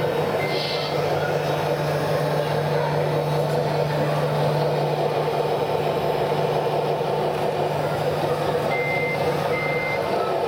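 The hydraulic pump of a radio-controlled Wedico CAT 966G wheel loader runs with a steady low hum as the lift arms raise a pallet on the forks, stopping near the end. Near the end the model's sound module also gives two short reversing beeps.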